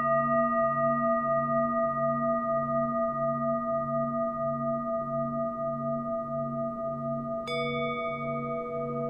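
A singing bowl rings on, its low hum pulsing in a slow, even wobble a little under twice a second and slowly fading. About seven and a half seconds in, another bowl is struck with a sharp ting, adding a new, higher ringing tone.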